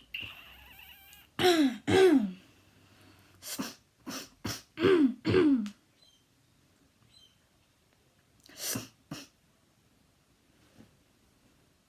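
A person coughing repeatedly: about nine short coughs, mostly in quick pairs, with the loudest falling in pitch. It is typical of habit cough, a tic-like chronic cough without a physical cause.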